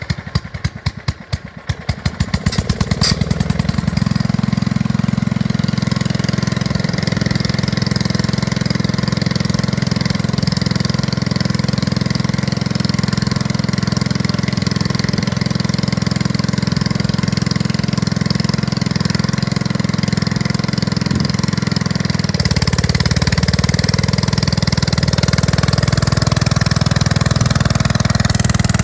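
Troy-Bilt rear-tine tiller's single-cylinder gasoline engine just after starting, its firing strokes quickening over the first few seconds before it settles into a steady run. About three quarters of the way through it changes to a slightly louder, deeper note.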